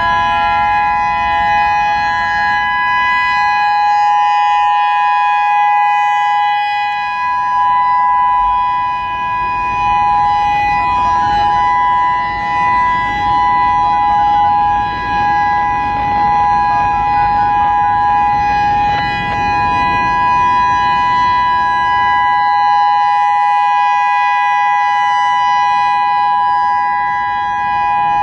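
Federal Signal EOWS 612 electronic outdoor warning siren sounding its Alert signal: a loud, steady chord of two close tones held without rising or falling, with only small dips in level.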